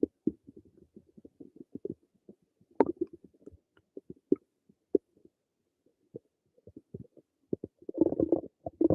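Human stomach gurgling: a string of small irregular pops and crackles, with a sharper pop about three seconds in. It thins out for a few seconds, then a dense bout of gurgling starts near the end.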